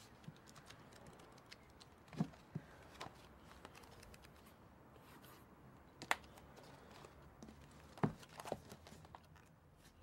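Faint rustling of book pages and paper being handled, with a few short sharp taps and knocks, the loudest about two, six and eight seconds in.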